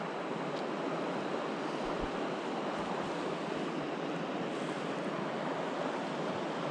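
Steady rush of a fast mountain river, an even hiss of running water.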